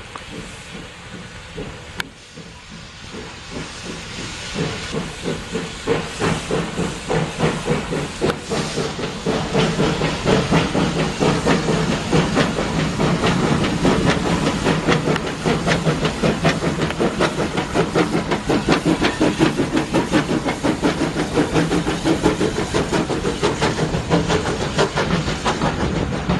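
Small tank steam locomotive starting away with a train of coaches: steam hissing from the open cylinder drain cocks, then exhaust beats that begin about four seconds in and quicken and grow louder as it gathers speed and passes close.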